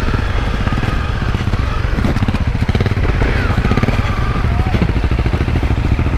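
Honda CRF250L single-cylinder four-stroke engine running at low speed on a dirt trail, with a steady, rapid putter of firing pulses.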